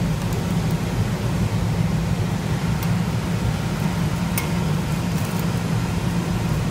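Meat sizzling on a tabletop grill pan over a portable butane stove: a steady hiss over a low rumble, with a couple of light clicks from metal tongs.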